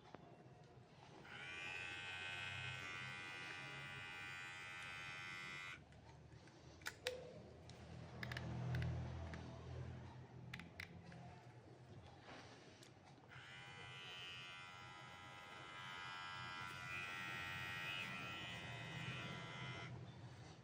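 Xiaomi Beard Trimmer 2 cordless beard trimmer switched on twice, each time running with a steady motor buzz for about four to six seconds. Between the two runs come a few clicks and handling knocks.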